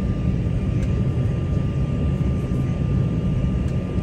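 Cabin noise inside an Embraer 190 jet taxiing: a steady low rumble from its engines at low power, with a thin, unchanging whine above it.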